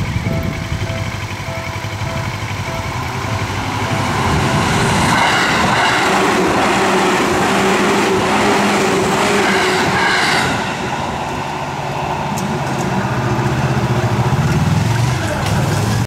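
Japanese level-crossing warning bell ringing its steady repeated ding. From about four seconds in, a yellow Seibu Kokubunji Line commuter train runs past over the crossing, its wheels and motors covering the bell. The train noise dips briefly around eleven seconds in and then swells again.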